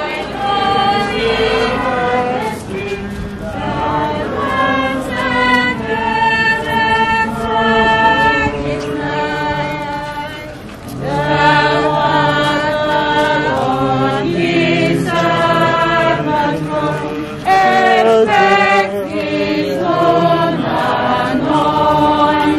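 A church choir and congregation singing a hymn together, on held notes, with a short break about ten seconds in before the singing resumes.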